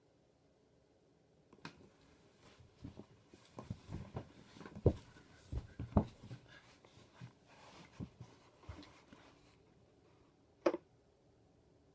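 Irregular light clicks and knocks of handling, with one sharper knock near the end; no motor runs.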